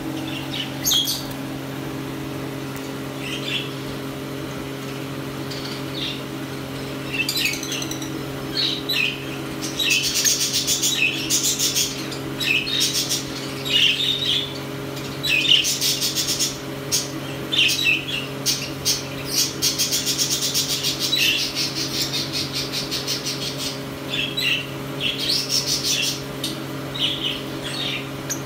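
Albino lovebirds chirping and chattering in shrill, high calls: scattered single chirps at first, then runs of rapid buzzy chatter from about a quarter of the way in. A steady low hum runs underneath.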